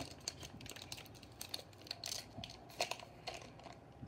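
Foil wrapper of a Pokémon card booster pack crinkling in the hands as it is worked at to open it, in short, scattered crackles.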